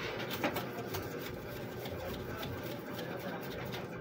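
Light scratching and rustling with a few faint clicks as a small brush scrubs the RAM slot and board inside an open desktop PC case.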